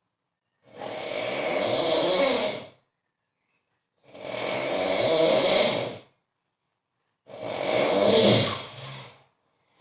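A man snoring very loudly in his sleep: three long snores, each about two seconds, coming about every three and a half seconds with silence between them.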